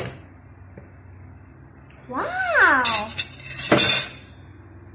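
Electric sandwich maker being opened: a click at the start, then a clatter of the plastic-and-metal lid and plates lifting open a little under four seconds in. About two seconds in there is a brief sound that rises and then falls in pitch, like a short vocal exclamation.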